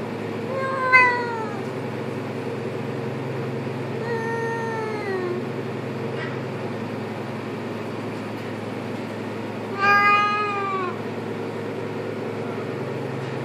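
Persian cat giving three long, drawn-out meows, each falling in pitch and several seconds apart, the last the loudest. The calls come while a second cat is mounted on its back, gripping its neck in a mating hold.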